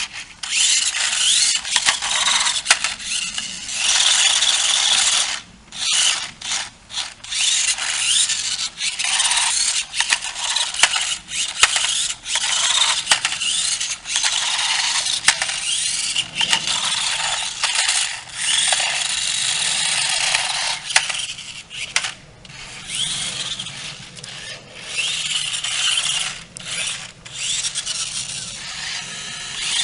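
Spin Drifter 360 remote-control car's small electric drive motors and gears whirring in stretches of a few seconds, repeatedly stopping and starting again as the car is driven.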